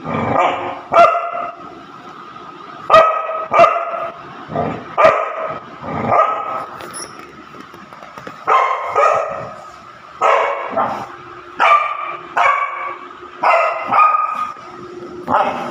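Labrador puppy barking over and over in short, high barks, with a short pause about halfway through; it is barking at a toy stuck out of reach under the furniture.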